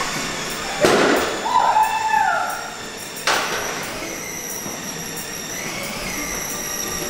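Two sharp bangs of balloons popping, about two and a half seconds apart, with a short rising-then-falling squeal between them.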